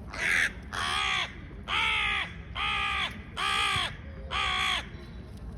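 Crow giving six squeaky cawing calls in an even series, each about half a second long and rising then falling in pitch.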